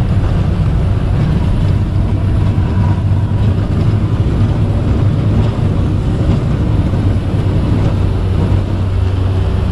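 Single-engine high-wing plane's piston engine running at high power in a steady drone during the takeoff roll, heard from inside the cabin.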